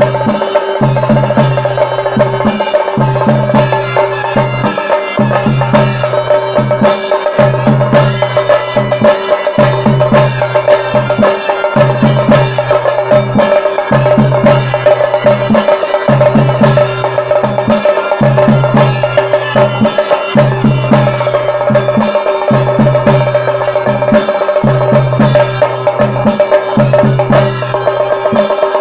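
An ensemble of chende drums, the cylindrical stick-beaten drums of coastal Karnataka and Kerala, played together in fast rolls. The drumming keeps a steady repeating rhythm with regular low strokes, over a steady held tone.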